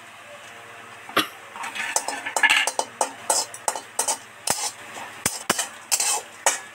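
Metal spatula scraping and clacking against a dry metal kadai as whole dried red chillies are tossed and dry-roasted without oil. The strokes start about a second in and come quickly and irregularly, several a second.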